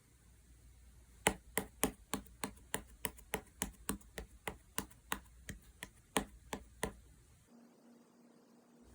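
Slime being pressed and kneaded by hand, making a quick run of sharp popping clicks, about four a second for some five seconds, as trapped air bursts out of it.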